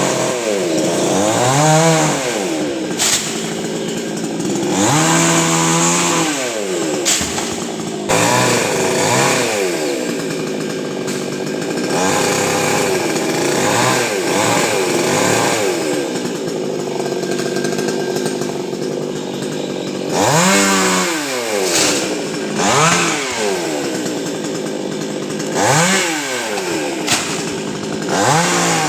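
Two-stroke chainsaw running and cutting through coconut palm wood. Its engine pitch rises and falls again and again as the throttle is worked.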